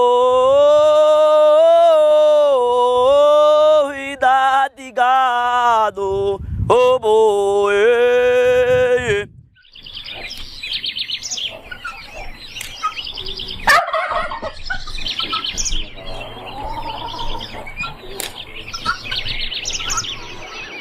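A vaqueiro's aboio: a wordless sung cattle call in long, wavering held notes that slide between pitches, breaking off about nine seconds in. After that come quieter outdoor sounds with birds chirping.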